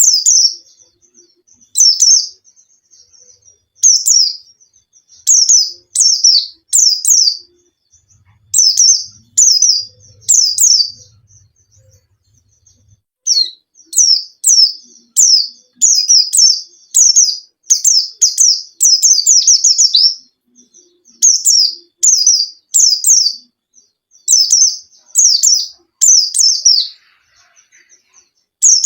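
Pleci (white-eye, Zosterops) in full song: repeated short bursts of high, quick, falling chirps, one burst every second or so, packed closer together in the middle and with a pause of about two seconds about a third of the way through.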